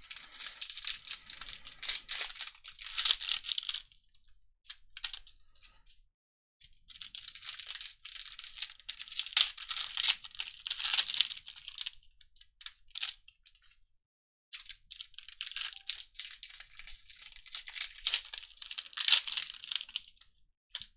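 Foil wrappers of Mosaic football card packs crinkling and tearing as they are opened by hand. The crackling comes in three long bouts, with short pauses and a few small clicks between them.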